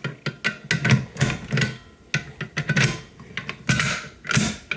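Irregular clicks, clacks and knocks of a fire alarm pull station being handled and reset by hand.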